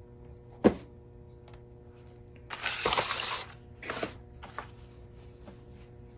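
Small parts and tools being handled on a work surface: a sharp click under a second in, a rustling scrape about two and a half seconds in, a shorter one about a second later, and a few light ticks, over a faint steady hum.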